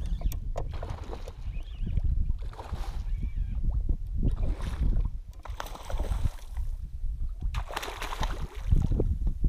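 Water splashing as a hooked redfish thrashes at the surface close to the kayak, in several irregular bursts over a low steady rumble.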